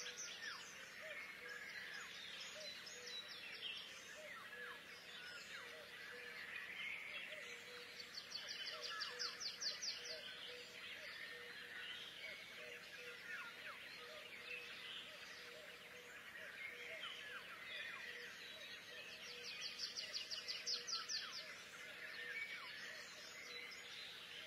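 Small songbirds chirping and twittering, with a fast, high trill that comes back about every ten seconds.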